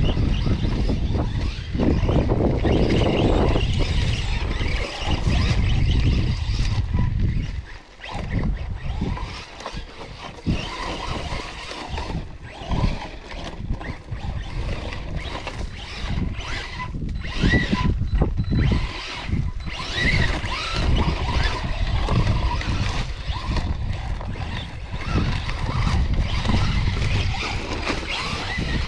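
Arrma Senton 3S RC short-course truck's brushless motor whining in bursts as it drives through sand, under heavy wind buffeting on the microphone. The noise swells and drops with the throttle, dipping briefly about eight seconds in.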